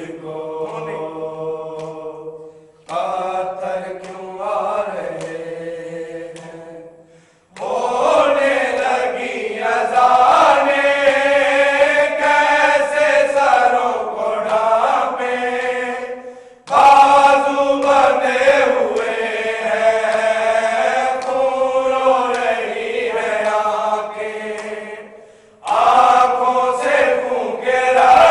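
Group of men reciting an Urdu noha together, sung without instruments in long chanted phrases broken by four short pauses.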